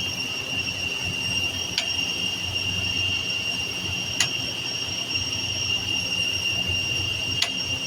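Three sharp clicks a few seconds apart as the cold storage units' circuit breakers are switched back on, over a steady machinery hum with a high whine.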